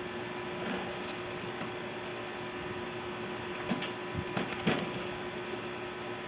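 A steady mechanical hum, with a few light knocks about two-thirds of the way through as scrap parts are handled.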